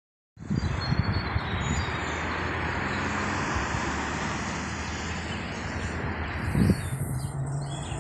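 Steady outdoor vehicle noise with a low rumble, a few low thumps and faint bird chirps.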